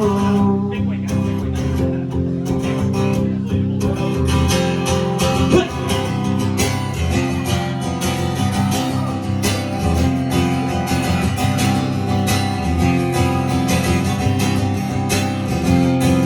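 Acoustic guitar strummed through an instrumental passage of a live song.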